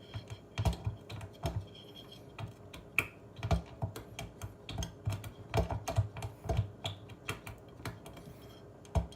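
Irregular clicks and knocks of a loosened refrigerator door handle being worked and pulled at to unhook it from the door, several light taps a second.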